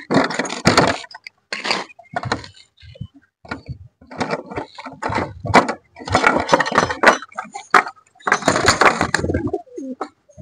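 Domestic pigeons cooing and flapping their wings in and around a wooden coop as it is opened, in irregular bursts of a second or so with short gaps.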